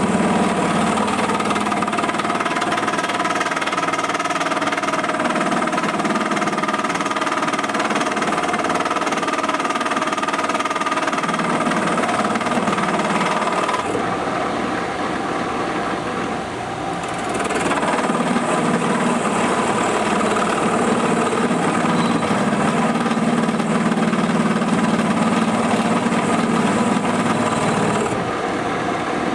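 Milling machine with its cutter running into hard cast iron, a steady machining whine with a rattling chatter. The cut eases off briefly just past halfway, then picks up again.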